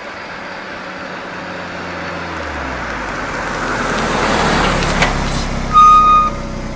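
Motor vehicle engine running and growing steadily louder as it approaches, its low engine note dropping in pitch about two and a half seconds in. About six seconds in comes a short, high-pitched beep, the loudest sound.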